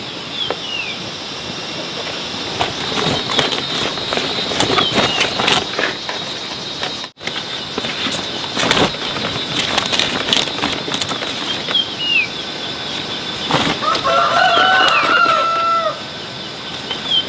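A rooster crowing once, about two seconds long, near the end. Short falling bird chirps sound a few times, over a steady high hum and scattered clicks and knocks.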